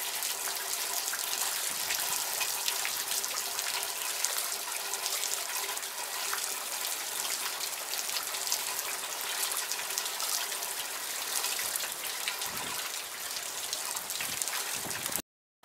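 Steady thunderstorm rain falling, with roof runoff pouring and splashing into half-barrel rain-collection buckets. It cuts off suddenly near the end.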